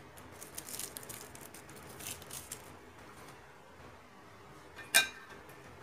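Small plastic parts of a Boya BY-M1 lavalier microphone being handled to open its battery compartment: faint clicks and rustling, then one sharp click with a brief metallic ring about five seconds in.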